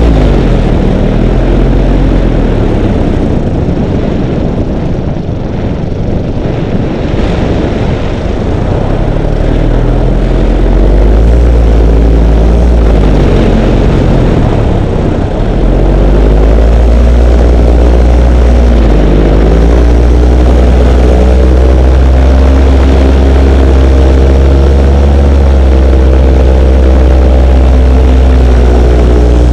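Model airplane's motor and propeller heard from an onboard camera, running hard with a strong low wind rumble on the microphone. The pitch dips and climbs again several times in the first half as the throttle changes, eases off with more rush of air a few seconds in, then holds steady at high power.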